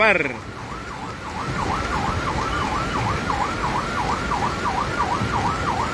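A siren sounding in a fast rising-and-falling yelp, about three sweeps a second, starting faintly about a second in and growing louder, over the steady hiss of heavy rain.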